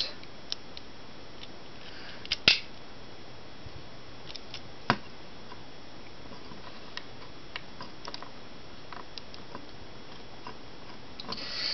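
Small plastic clicks and snaps from a Car Robots Build Boy (Wedge) toy figure as its parts are folded and pushed into place by hand, scattered and irregular over a faint steady hiss. The loudest snap comes about two and a half seconds in.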